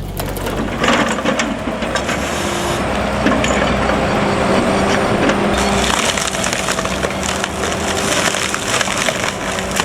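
Firewood processor splitting logs: wood cracking and splintering over the steady drone of the machine.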